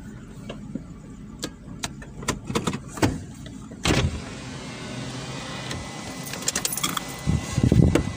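Car idling with a low steady hum, under scattered sharp clicks and rattles from inside the cabin, the loudest about four seconds in. A louder low rumble comes in near the end.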